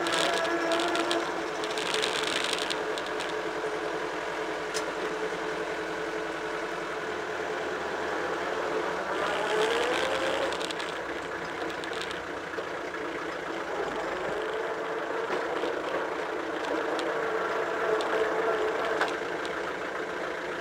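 Tractor engine running steadily while driving, heard from on board close to its exhaust stack; its pitch rises briefly about halfway through.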